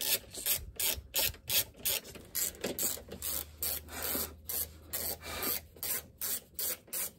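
Hand ratchet clicking in quick back-and-forth strokes, about three a second, undoing a bolt on the car's plastic undertray.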